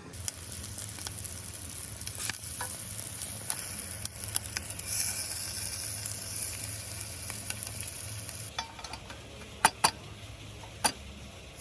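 Food sizzling and crackling in a hot pan; the sizzle drops away about eight and a half seconds in, followed by a few sharp clicks.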